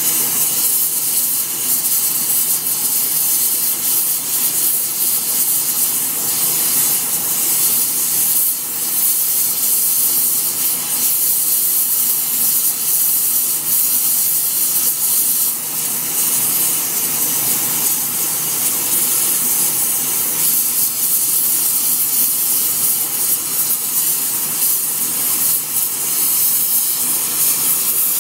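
Gas brazing torch flame hissing steadily and high while it heats the edge of a cane-sugar mill hammer, brazing on TufCote hardfacing cord.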